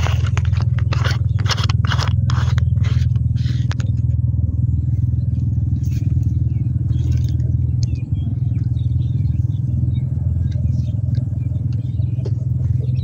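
A steady low rumble that does not change, with a quick run of scraping and clattering handling noises over the first four seconds.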